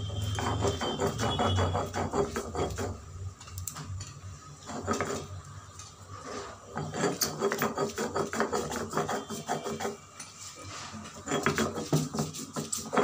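Stone roller (nora) rubbed back and forth on a flat grinding stone (shil), crushing Indian pennywort (thankuni) leaves into a paste. Rapid stone-on-stone rubbing strokes come in runs of a few seconds, with short pauses between the runs.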